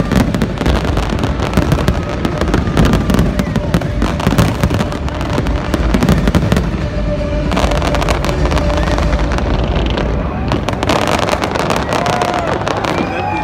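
Large fireworks display going off in a dense barrage: a rapid, continuous run of bangs and crackles from bursting shells over a steady rumble.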